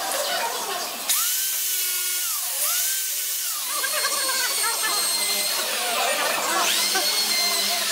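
A small high-speed power tool, drill-like, run in short bursts. Its whine rises, holds and drops twice in quick succession about a second in, and once more near the end, over a steady high hiss.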